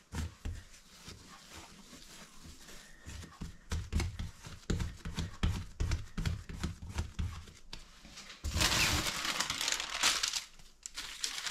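Hands patting and rolling a ball of bread dough on a stone worktop: a run of soft, dull thumps. About eight and a half seconds in, a sheet of baking paper crinkles loudly for about two seconds.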